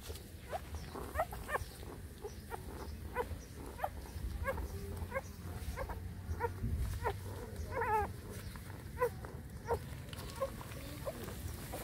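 Newborn puppies squeaking and whimpering while they nurse, many short high calls scattered irregularly, with one longer wavering whine about eight seconds in.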